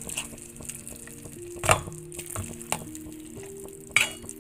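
Steel hand masher squashing soft cooked vegetables in a pan, with wet squelching and small scrapes, and two sharp knocks of the masher against the pan, about a second and a half in and near the end. Soft background music with held notes plays underneath.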